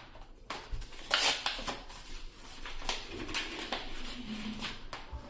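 Yu-Gi-Oh trading cards and pack wrappers being handled: irregular papery rustles and light card snaps, loudest just after a second in.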